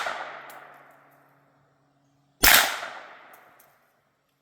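Suppressed 9mm CZ Scorpion Evo 3 S1 carbine, with a Dead Air Mojave 9 suppressor in its long configuration, firing supersonic rounds. The tail of one shot fades out at the start, and a second sharp shot comes about two and a half seconds later, each followed by about a second of echo.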